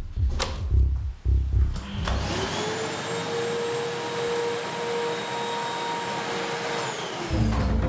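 A few knocks and clicks, then a canister vacuum cleaner switches on about two seconds in: its motor whine climbs to a steady pitch over a rushing hiss of air and holds there. Near the end the whine falls in pitch as the motor winds down.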